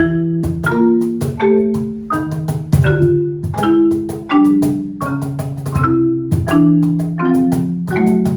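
Instrumental music: a steady run of struck, ringing notes with a melody over lower held chords.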